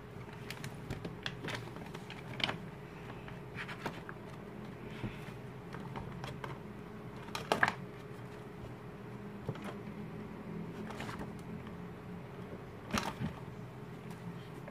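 Plastic and foil packaging crinkling as it is handled and pulled off a photobook, with scattered sharp crackles, the loudest about halfway through and again near the end, along with the rustle of stiff pages being turned.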